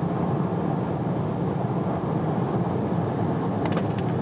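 Steady low rumble of a car's road, tyre and wind noise heard inside the cabin at motorway speed, about 130 km/h. A few brief faint clicks near the end.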